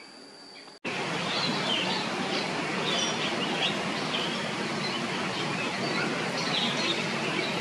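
Birds chirping repeatedly over a steady rushing noise. Before the rushing starts, under a second in, there is a thin steady high whine.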